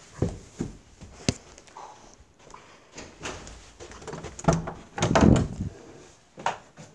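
Irregular knocks and thumps with rubbing handling noise from a hand-held camera being carried, the loudest cluster about five seconds in.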